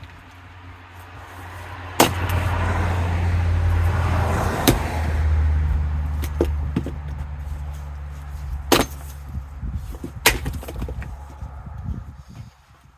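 Axe blows splitting firewood: four loud sharp strikes with a few lighter knocks between them. A low hum runs underneath, louder through the first half.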